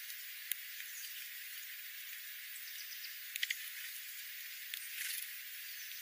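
Small birds feeding on seed scattered over gravel: a few short ticks, a cluster of two or three about halfway through, and a brief rustle near the end, over a steady hiss.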